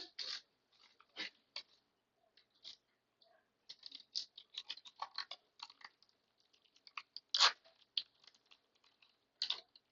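Wrapper of a trading card pack being torn open and crinkled by hand: a run of short, crisp crackles and rustles, the loudest about seven and a half seconds in.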